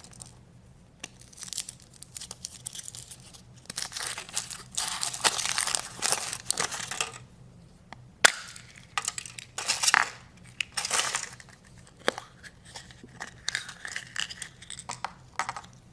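Foil wrapper of a chocolate surprise egg crinkling and tearing in irregular bursts, with scattered clicks and one sharp click about eight seconds in.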